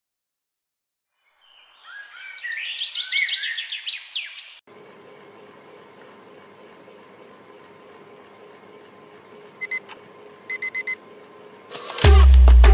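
Birds chirping for about three seconds, then a quiet steady hum broken by a digital alarm clock beeping in two short groups. Near the end a whoosh leads into loud upbeat reggaeton music with strong bass and drums.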